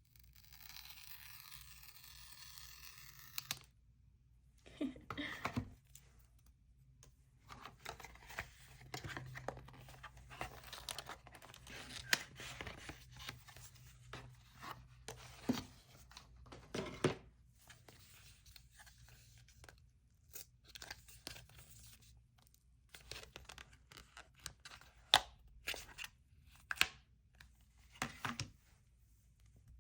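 Cardboard and paper packaging of an Apple Watch band being torn open by hand: a steady tearing for the first few seconds, then rustling with scattered sharp taps and clicks as the box is opened and handled.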